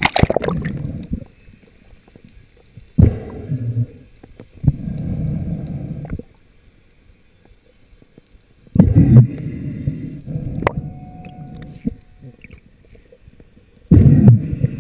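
A splash as the camera plunges underwater, then muffled underwater gurgling and rushing in several bursts of one to three seconds, with quieter gaps between.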